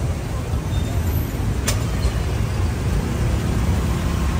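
Steady low rumble of street traffic, with a single sharp click about a second and a half in.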